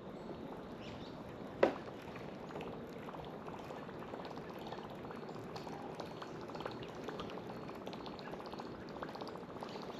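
Water trickling and sloshing with a faint crackle, with one short sharp sound about one and a half seconds in.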